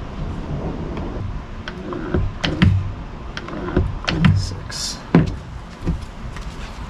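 Plastic pump dispensers on jugs of epoxy resin and hardener being pressed by hand, giving a run of irregular plastic clicks and knocks with duller thumps, starting about a second and a half in.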